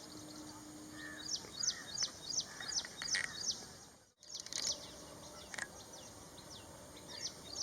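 Ashy prinia calling: rapid runs of short, high, falling notes, about four to five a second, in two bursts separated by a brief break, over a faint background hiss.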